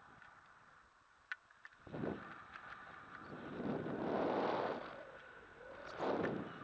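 Airflow buffeting the camera microphone in flight. The rushing swells up briefly at about 2 s, rises to its loudest in a longer gust in the middle, and comes again near the end. A single small click sounds just before the first swell.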